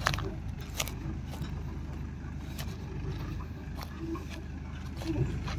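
Diesel engine of a farm machine running steadily, with scattered sharp knocks and clanks over it.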